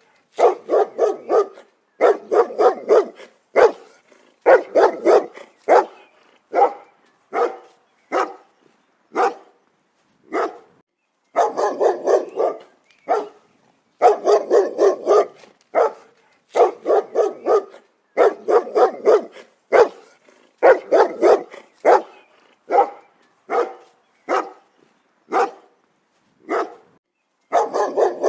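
A dog barking repeatedly in quick runs of two to five barks, with short pauses between the runs.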